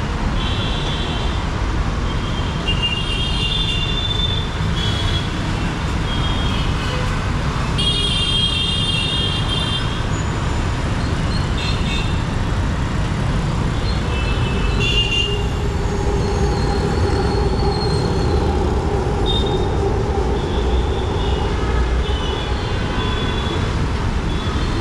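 City road traffic: the steady rumble of auto-rickshaws, motorbikes and cars, with frequent short vehicle horns and one longer horn blast about eight seconds in. In the second half a steady hum builds as a metro train approaches on the elevated viaduct.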